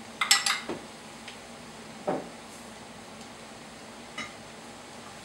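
A small metal measuring cup clinks a few times against a stainless steel skillet, quick and sharp, about a quarter second in. A duller knock follows about two seconds in and a faint tick near four seconds.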